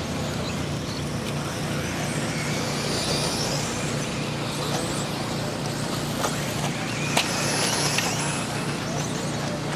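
Radio-controlled 2WD buggies racing on an off-road track: a steady wash of noise with the high whine of the cars' motors and gears swelling as they pass, about three seconds in and again near eight seconds. A few sharp clicks, the loudest about seven seconds in, from cars landing or hitting things.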